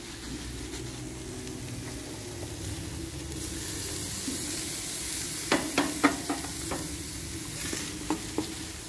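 Marinated meat sizzling steadily on a gas grill's grate, with metal tongs clicking several times about two-thirds of the way in and twice more near the end as pieces are lifted and placed.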